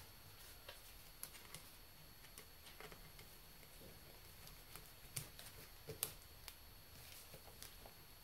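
Near silence with a few faint, scattered clicks and taps of a screwdriver and metal clips on a fuel rail as a fuel injector is pried at to work it loose.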